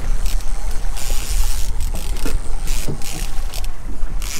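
Wind buffeting the microphone as a heavy low rumble, with water splashing around a small boat in stretches that come and go every second or so.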